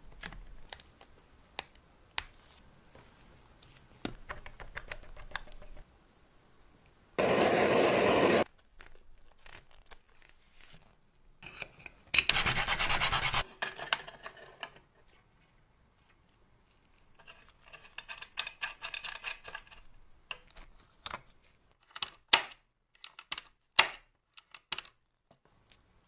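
Rubbing and scratching on a small object, broken by two loud bursts of steady hiss about a second long each, with a string of sharp clicks near the end.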